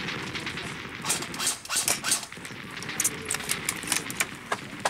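Scattered gunfire: a dozen or more sharp shots at irregular intervals, some close together, a few well apart.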